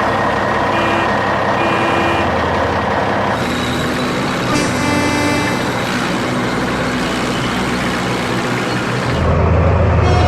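Truck engine sound effects running steadily, with two short beeps about a second in and a louder, deeper engine drone starting near the end.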